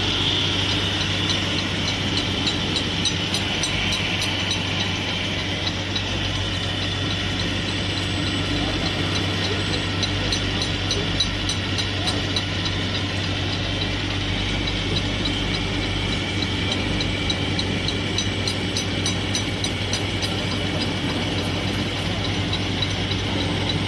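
Edge milling machine with a single milling head running steadily as it mills the edge of a steel plate, a constant machine hum.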